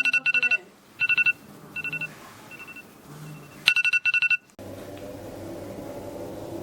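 Electronic telephone-style ringtone trilling in short repeated bursts that fade away, then ring loudly again before cutting off abruptly. A steady low hum follows after the ring stops.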